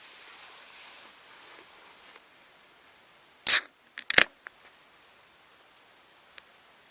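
A sharp knock, then a quick double knock about half a second later, over faint hiss.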